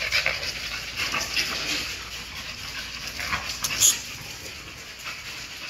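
American bully puppies play-wrestling with an adult dog, giving short yips and whimpers over a patter of scuffling clicks, with one sharp high yelp about four seconds in.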